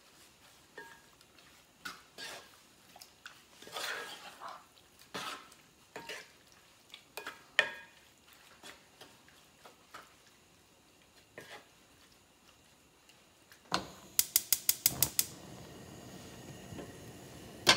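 Wooden spoon stirring chunks of raw chicken gizzard around a ceramic-coated pot, with irregular scrapes and light knocks against the pot. About fourteen seconds in comes a quick run of about eight sharp clicks, then a steady low hiss.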